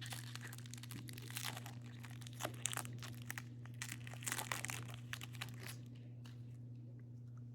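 Plastic trading-card pack wrapper crinkling and being torn open, a quick run of irregular crackles that thins out about five and a half seconds in.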